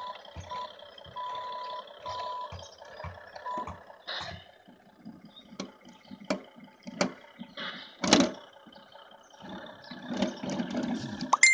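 Toy truck's electronic sound module: unevenly spaced reversing beeps over a buzzy engine sound for the first few seconds, then plastic clicks and knocks from buttons being pressed and the truck being handled, the loudest about eight seconds in.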